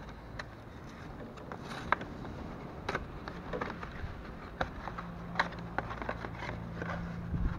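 Cardboard oil-filter box being opened and handled: a scatter of sharp ticks and rustles as the new filter is worked out of the box. A low steady hum comes in about three seconds in.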